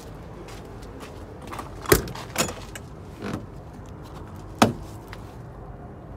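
An old truck's cab door being handled: four sharp clunks and knocks over about three seconds, the loudest about two seconds in.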